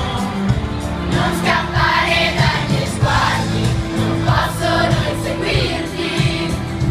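Crowd of young fans singing a pop song together as a choir, with a musical backing underneath.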